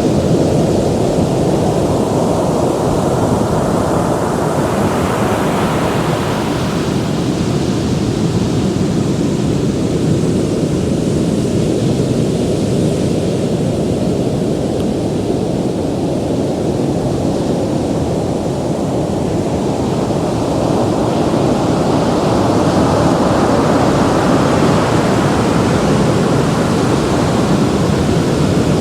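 Ocean surf: a continuous wash of waves breaking and rolling in. One wave breaks about five seconds in, and the surf builds again in the last third.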